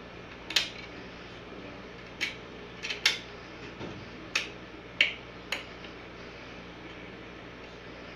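Plastic DVD cases being handled: a run of about seven sharp clicks and taps over five seconds, then only a steady low hum.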